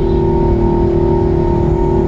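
Airbus A380's four jet engines running at takeoff power: a loud, steady rumble with two unchanging engine tones riding on it.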